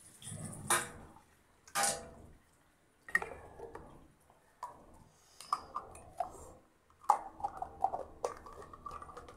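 Water splashing and dripping at a sink, then a string of small clicks and knocks as plastic items are handled, with a quick run of clicks near the end.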